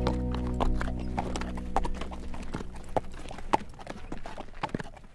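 A horse's hooves clip-clopping at a walk on a dirt driveway, the hoofbeats growing fainter.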